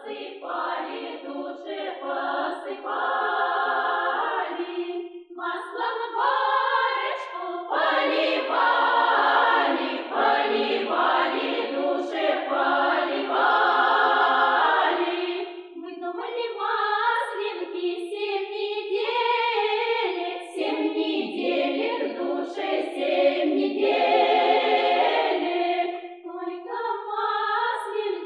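Russian village folk choir singing a Maslenitsa (Shrovetide) song unaccompanied, in phrases broken by short pauses for breath.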